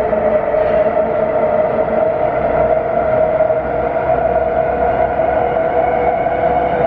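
Russian-built 81-series metro train heard from inside a passenger car as it runs through the tunnel: the traction motors and gearing whine in several steady tones that creep slightly upward in pitch as the train gathers speed, over the rumble of the wheels on the rails.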